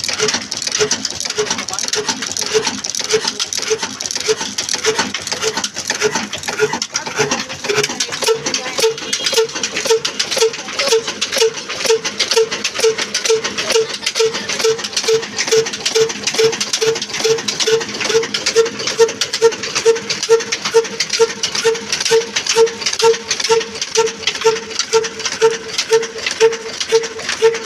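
Old black single-cylinder 'desi' diesel engine running at a slow, steady beat of about two a second, the beat growing louder and more even from about eight seconds in. Under it is a busy clicking clatter from the belt-driven pulleys.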